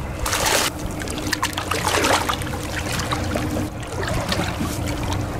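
Seawater splashing and trickling at the side of a small boat, with a short rush of noise near the start and scattered little splashes, over a faint steady hum.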